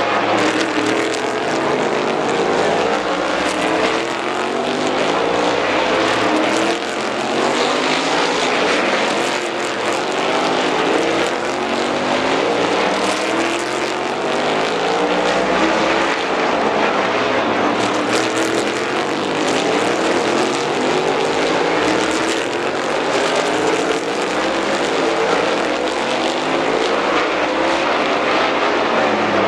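A field of race cars running through a hairpin. Several engines overlap without a break, their notes repeatedly climbing as the cars accelerate out of the turn.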